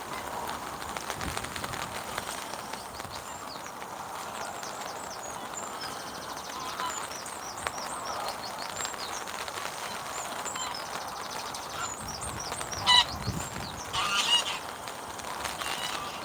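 Heavy rain falling on a fishing umbrella, with small birds chirping throughout. A goose honks loudly twice near the end.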